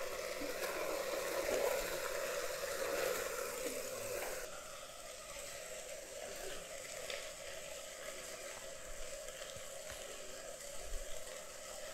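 Vegetables and spices frying in oil in a pressure cooker, a steady gentle sizzle. The sizzle drops abruptly to a quieter level about four and a half seconds in.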